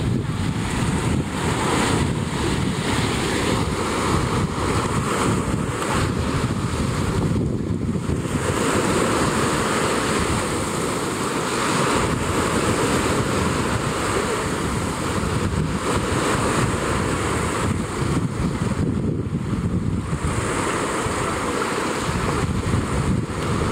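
Steady wind noise on the microphone over sea waves washing against rocks.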